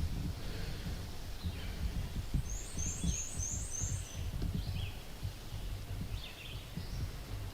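Songbirds calling in the woods: a quick run of about six thin, high notes about two and a half seconds in, with scattered fainter chirps, over a low, uneven rumble.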